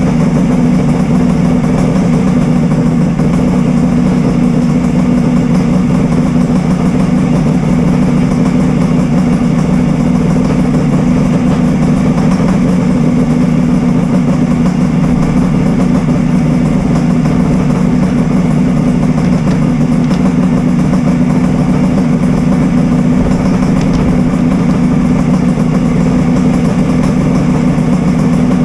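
Kawasaki Mach III three-cylinder two-stroke motorcycle engine idling steadily, on its first run after a rebuild with a new ignition fitted.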